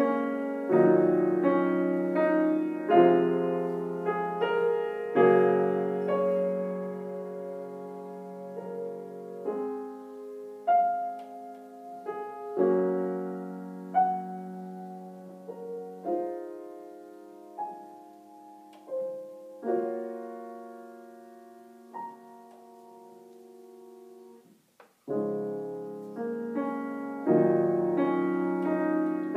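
Solo grand piano playing: chords struck and left to ring and fade. The middle is softer and sparser; a short break comes a little before the end, then loud chords return.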